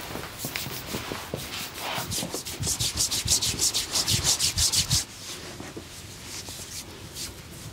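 Hands rubbing briskly back and forth over skin in a massage. The strokes are fast and even, several a second. They grow louder about two seconds in and fall back to a softer rubbing about five seconds in.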